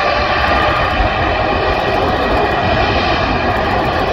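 Jet engines of a Boeing 787-10 Dreamliner at takeoff power during its takeoff roll: loud, steady jet noise with a faint whine running through it.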